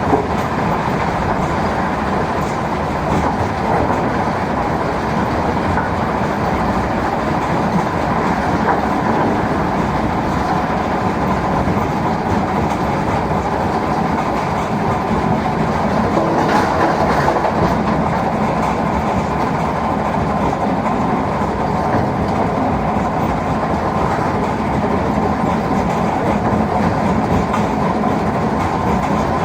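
Mobile stone crusher and excavator working together, a loud steady rumble with continuous clatter of stone being crushed.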